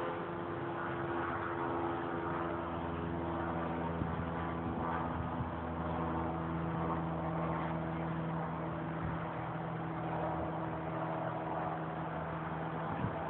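An engine running steadily, giving a constant droning hum.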